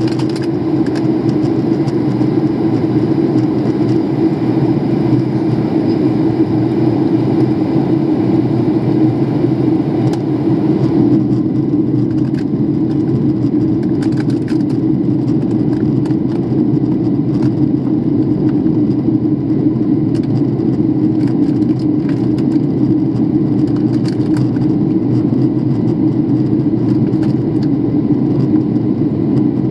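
Jet airliner cabin noise in flight: the engines and rushing air as a steady low drone with a hiss above it, the hiss easing slightly about eleven seconds in.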